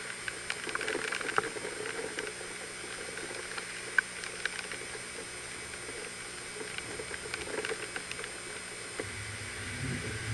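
Vehicles passing on a flooded, wet street, their tyres hissing through the water, with scattered small ticks. A low engine rumble comes up near the end as another SUV approaches.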